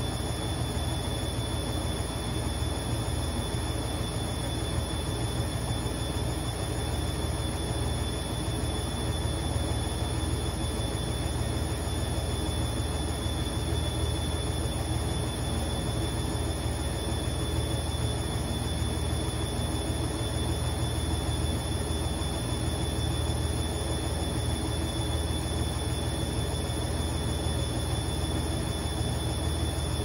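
Candy front-loading washing machine running steadily, its motor and drum giving a constant low hum with a steady high whine on top as the drum turns through a load thick with foam: the machine is stuck in suds lock from too much detergent foam.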